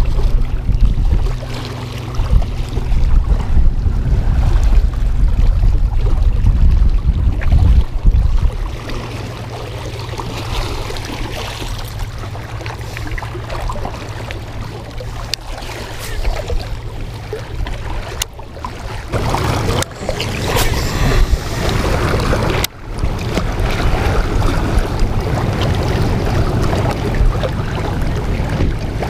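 Wind buffeting the camera microphone over small waves lapping against a rocky lakeshore, gusting hardest in the first third, with a few brief clicks past the midpoint.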